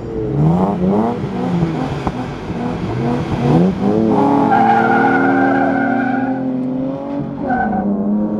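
Two V6 pickups, an Isuzu KB320 and a Nissan 3.3, revving up and down in short bursts at the start line, then launching together with tyre squeal about four seconds in and accelerating hard away. Near the end the engine pitch dips and climbs again.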